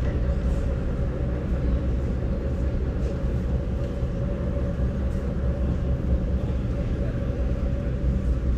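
Steady low rumble of vehicles at a railway station, unchanging throughout with no sharp events.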